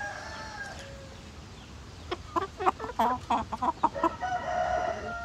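Rooster crowing: the long held end of one crow in the first second, then a run of short clucking calls, and another long, steady crow starting near the end.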